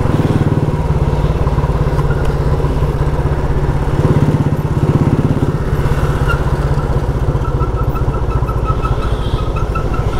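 Motorcycle engine running steadily while riding. A string of short, high, evenly spaced beeps joins in over the last few seconds.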